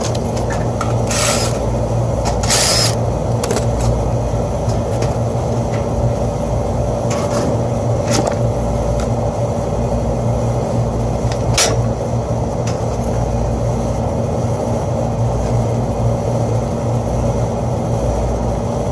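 Steady low machinery hum of rooftop HVAC equipment running, broken by a few brief clicks and rustles of tools being handled about one, two and a half, eight and eleven seconds in.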